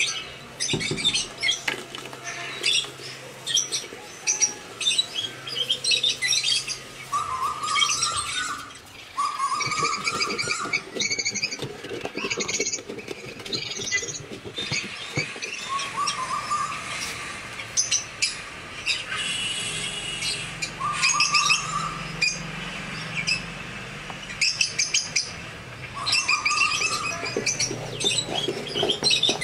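Birds chirping and calling throughout, with many quick high chirps and a short, slightly rising lower call repeated every few seconds.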